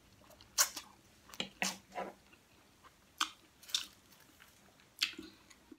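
Close-miked mukbang eating sounds: a person slurping and chewing stir-fried noodles (pansit guisado), in several short, wet bursts with quiet between them.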